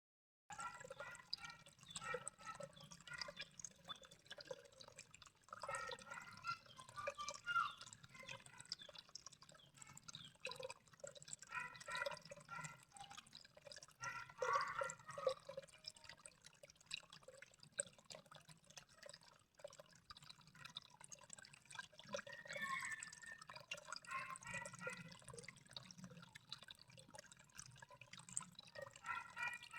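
Water dripping and trickling: a constant stream of small, irregular pitched plinks that come in clusters.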